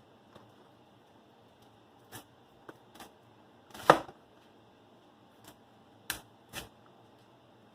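Knife cutting through a cauliflower and knocking on a cutting board: a few scattered knocks and clicks, the loudest about four seconds in, then two more near the end.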